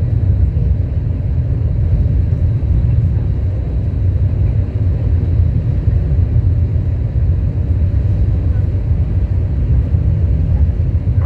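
Steady low rumble inside the cabin of an Airbus A321 airliner: its jet engines and airflow running without a break.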